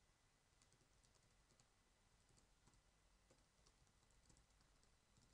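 Very faint typing on a computer keyboard: a scattered run of light key clicks.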